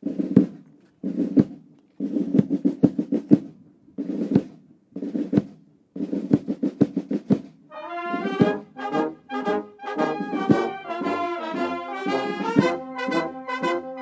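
Ceremonial band of brass and drums playing. Short drum passages separated by brief pauses open the passage, and about eight seconds in the brass enters with a melody over the drum strokes.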